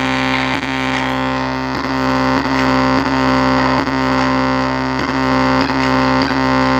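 Subwoofer driven very hard with heavily distorted bass: a steady low drone with harsh buzzing overtones and a pulse about every 0.6 s, a speaker being pushed until it blows.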